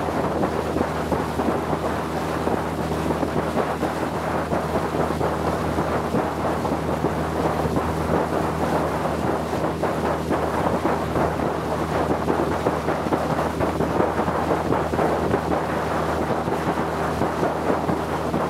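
Motorboat engine running steadily under way, a low even hum, mixed with wind buffeting the microphone and water rushing past the hull.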